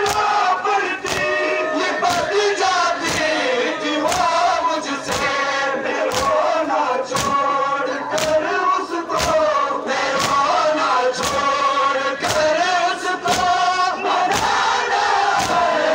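Large crowd of men chanting a Balti nauha (mourning lament) in unison, with collective chest-beating (matam) strikes landing together about once a second, a little quicker near the end.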